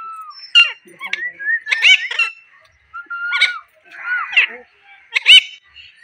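Alexandrine parakeet calling: a string of short, sharp chirps about one a second, with a couple of brief whistled notes and a harsher squawk near the middle.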